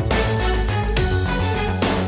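Music with a beat: held tones over regular drum hits.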